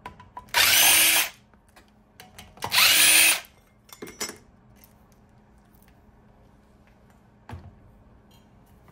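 Cordless power driver run in two short bursts about two seconds apart, each under a second long, backing bolts out of an electric motor's casing. Light handling clatter follows.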